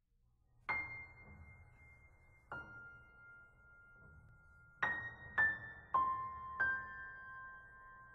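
Slow, sparse music of single high piano notes, each left ringing: one note, another about two seconds later, then four more in quick succession.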